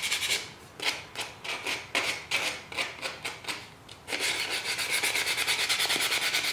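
Sandpaper (100 grit) rubbed by hand over the wooden handle of a skinning knife, a scratchy back-and-forth rasp that rounds off the handle's square corners and takes off its machining marks. The strokes come singly and spaced out at first, then turn fast and continuous about four seconds in.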